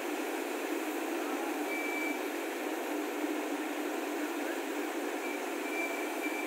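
Mobile crane's engine running steadily, with short high warning beeps about two seconds in and again a few times near the end.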